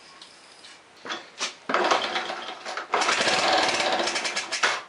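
1982 Honda Passport C70's single-cylinder four-stroke engine kick-started on starting fluid sprayed into the carburetor: after two short pops about a second in, it catches and runs with rapid firing in two bursts, then cuts out suddenly near the end.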